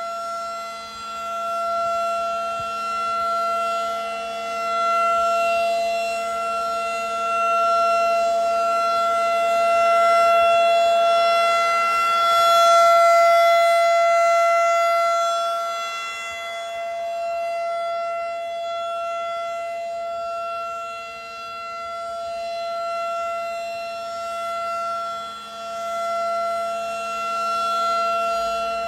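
Federal Signal 2001 DC battery-powered rotating outdoor warning siren sounding a steady single-pitch alert tone for a tornado drill. Its loudness swells and fades as the rotating horn sweeps toward and away, loudest about halfway through.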